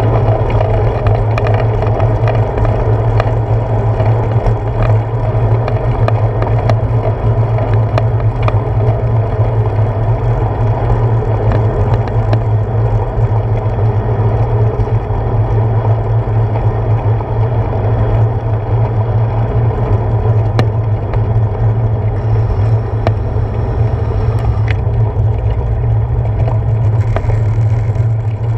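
A bicycle rolling along a paved path, heard through a handlebar-mounted action camera: a steady low rumble of tyres and frame vibration, with scattered small clicks and rattles.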